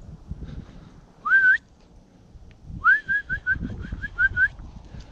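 A person whistling to call dogs: one short rising whistle about a second in, then a rising whistle that runs straight into a quick series of about seven short notes.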